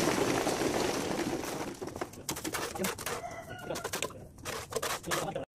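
Chickens clucking and squawking, over a loud rush of splashing and a run of knocks as a mason works with a pail and trowel in the water-filled brick pit.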